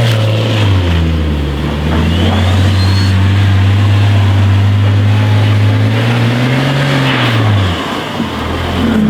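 BMW 335i's turbocharged 3.0-litre straight-six running under load at steady revs while the car is driven in snow. The revs climb briefly near the end, then drop off abruptly as the throttle is lifted.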